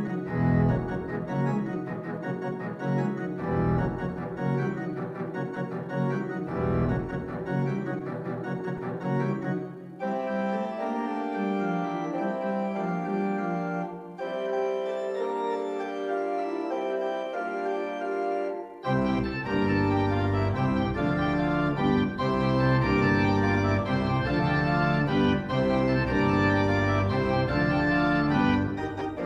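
Church organ playing slow, sustained chords. The deep bass notes drop out about ten seconds in and come back, with fuller and louder playing, about nineteen seconds in.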